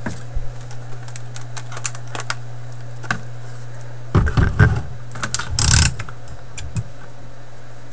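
Scattered sharp clicks and handling knocks as red test leads are handled inside a tube record player's cabinet, with a loud cluster about four seconds in and a short scratchy rustle near six seconds, over a steady low hum.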